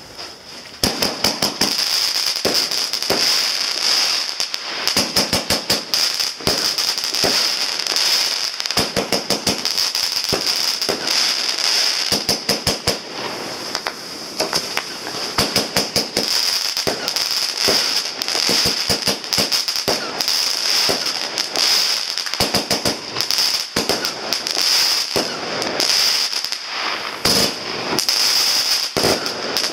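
Weco Jukebox 25 mm firework battery firing its 40 shots in quick succession. The sharp launch reports and bursts begin about a second in, over a continuous crackling from the crackle-cloud effects.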